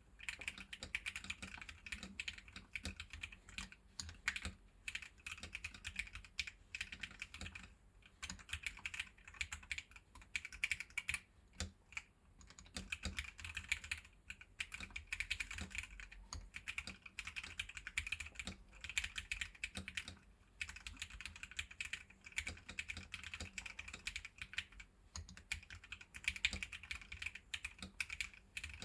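Continuous typing on a homemade caseless mechanical keyboard mounted on standoffs and rubber O-rings: dense runs of key clicks, broken by short pauses every few seconds.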